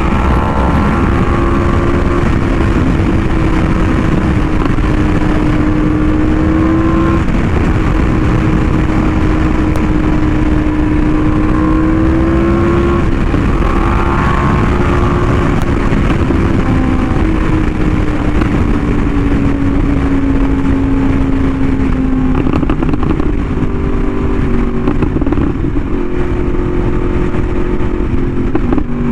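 Yamaha YZF-R1M's crossplane inline-four through an SC Project exhaust, cruising with a steady engine note that drifts slowly in pitch and shifts about three-quarters of the way through. Heavy wind rush on the microphone underneath.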